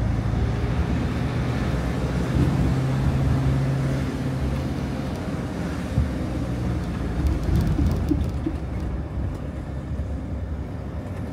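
Mercedes-Benz Sprinter motorhome driving on a city street: steady engine hum under road noise, with a single light knock about halfway through.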